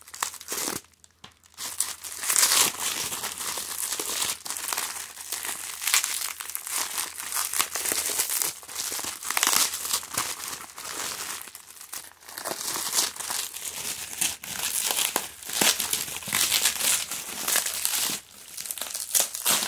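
Bubble wrap and packing paper crinkling and tearing as they are cut open and pulled off a wrapped object, starting about two seconds in as a dense run of crackles.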